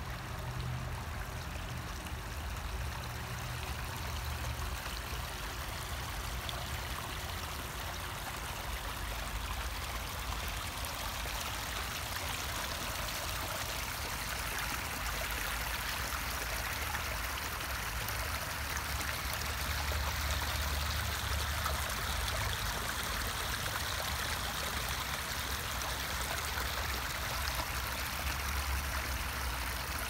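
Running water, a steady rushing that grows a little louder about halfway through, with a low rumble underneath.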